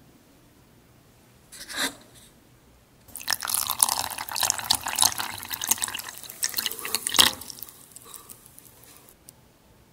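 Water poured from a paper cup onto a mound of granulated sugar in a stainless steel saucepan, splashing and trickling from about three seconds in. It peaks sharply just after seven seconds and tapers off by about nine seconds.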